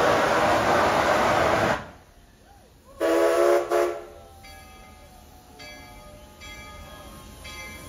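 Baldwin-built Rio Grande C-19 2-8-0 steam locomotive hissing loudly as it vents steam; the hiss cuts off sharply just under two seconds in. About a second later the locomotive's steam whistle gives a short blast and then a brief second toot, and faint music comes in after.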